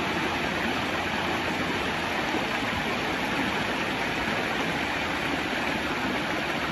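Waterfall and stream water rushing steadily.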